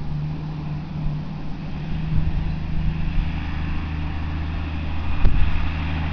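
Distant New Holland TM115 diesel tractor running steadily as it works a haybob turning hay, a low even engine hum that grows slightly louder near the end, with one brief thump about five seconds in.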